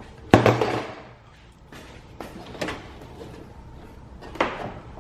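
Three clunks of something being handled. The first, about a third of a second in, is the loudest and trails off briefly; the other two come near the middle and near the end.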